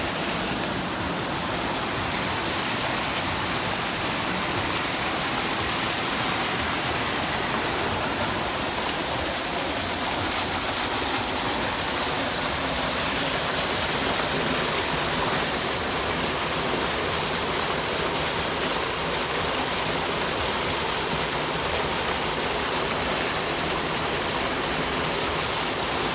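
Steady rush of water in a public water feature: water running and falling through a shallow stone channel and a waterfall into a cascade of concrete basins.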